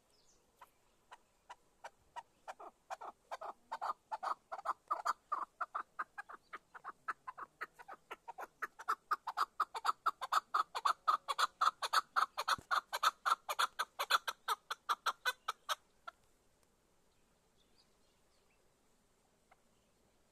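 Chukar partridge giving its rally call: a long series of short, clucking 'chuck' notes. The notes start slowly, build up to a fast, steady run of about five a second, and stop abruptly about sixteen seconds in.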